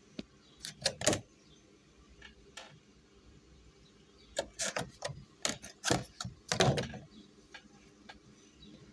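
Thin clear plastic food tray being handled and its lid opened: clusters of sharp plastic crackles and clicks, about a second in and again from about four to seven seconds in.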